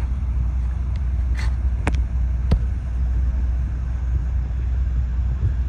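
Steady low rumble with three short, sharp clicks between about one and a half and two and a half seconds in.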